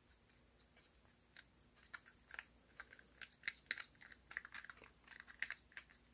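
Wooden craft stick stirring finishing resin in a small plastic mixing cup: quiet, irregular clicks and scrapes of the stick against the thin cup wall, coming thicker and faster from about two seconds in.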